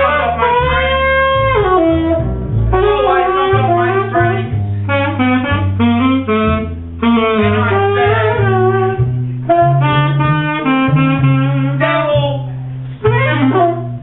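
Free-jazz saxophone playing bending, wavering lines over piano and low held bass notes, with brief breaks between phrases.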